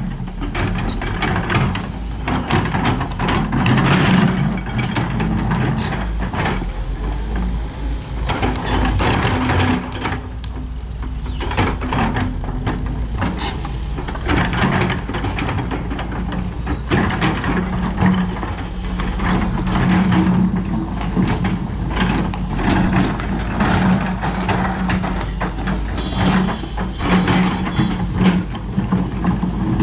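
Doosan DX225LCA excavator's diesel engine running steadily while it works, with repeated clanks and knocks from the bucket and the material it handles.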